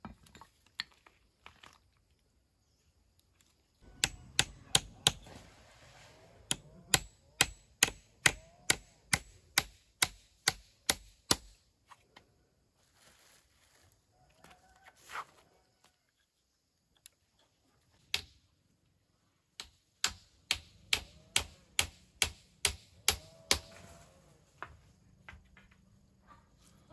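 Hammer driving nails into wooden sticks: a run of quick, even blows about three a second starting about four seconds in, then a second run near twenty seconds in.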